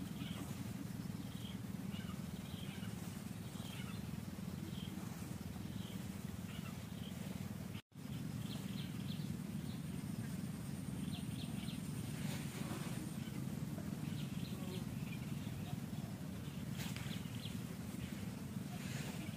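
Steady outdoor background noise with scattered short, high chirps throughout. The sound drops out completely for an instant about eight seconds in.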